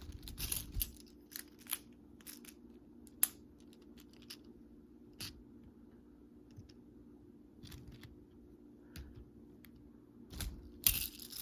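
Magnetic building toy pieces being handled and snapped together: scattered light clicks and taps, the sharpest about three seconds in and a quick cluster near the end, over a steady low room hum.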